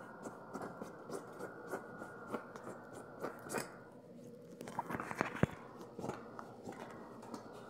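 A hand brushing and scraping crumbs off a sofa's fabric cushion: rustling with small crunchy clicks, a quick flurry of them about five seconds in. A faint steady hum underneath.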